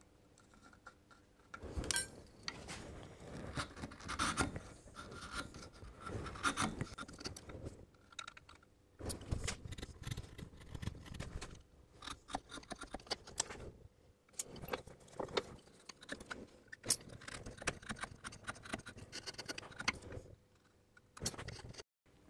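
Bevel-edge chisel paring wood by hand, trimming high spots from the walls of a half-lap dovetail socket: an irregular run of short scraping cuts mixed with small clicks and knocks, starting after a quiet first second or so.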